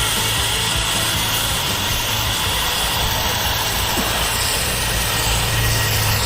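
A motor engine running steadily with a constant low hum.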